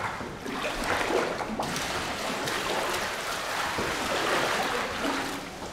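Water running steadily into a tank of bentonite clay mud as it is being thinned.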